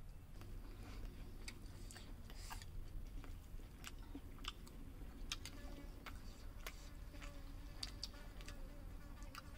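A housefly buzzing faintly close by, coming in about halfway through, over scattered small clicks and smacks of people eating with their hands.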